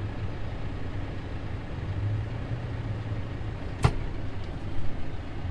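Tractor engine running steadily, heard from inside the cab, picking up a little about two seconds in. A single sharp click or knock comes a little before four seconds.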